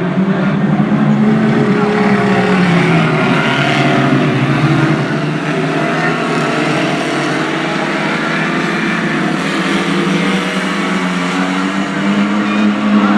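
Engines of several small oval-racing stock cars running hard around the track, their pitch sliding up and down as the cars lift and accelerate, with more than one engine heard at once.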